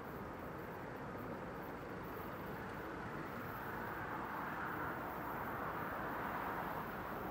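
RhB Allegra electric multiple unit pulling out and rolling away over the station's curved tracks and points: a steady wheel-and-rail running noise that grows slightly louder as the train picks up speed.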